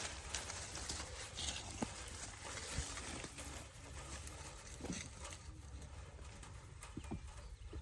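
Scattered light footsteps and rustling in brush, with a few sharp clicks, over a steady low rumble of wind on the microphone.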